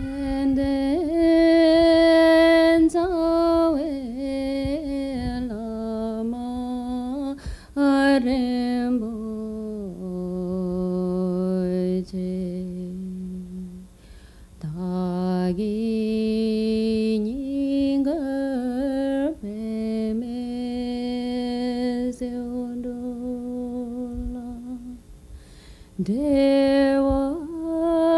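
A single voice singing a slow melody in long phrases, with notes held for several seconds and short breaks between phrases.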